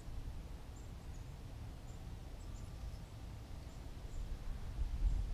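Faint outdoor background: a low, uneven rumble that grows stronger near the end, with short high bird chirps scattered through it.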